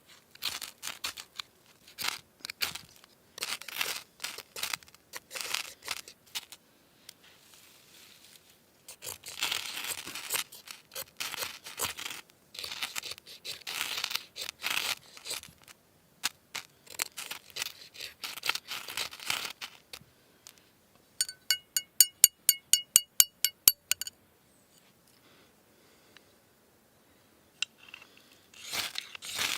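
Irregular crinkling and rustling handling noises, like packaging being crumpled and torn, with a rapid even run of sharp ringing ticks for about three seconds near the end.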